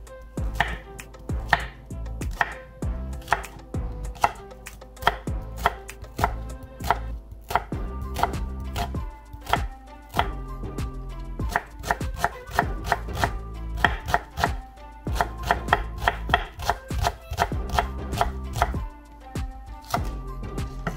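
Knife chopping red onion and then green onion on a wooden cutting board: a fast, irregular run of knocks of the blade against the wood, quickening in the middle.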